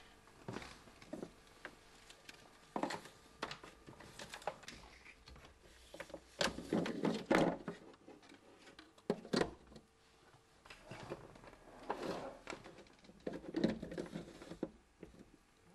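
Hard plastic parts and a power adapter being handled, slid and pressed together by hand: irregular clicks, taps and rustles, thickest about halfway through and again near the end, over a faint steady hum.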